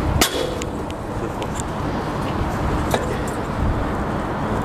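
One sharp metallic clang about a quarter second in from the long pipe extension and socket on an overtightened trailer hub nut, loaded by a man's weight, then a few faint clicks, over a steady low wind rumble.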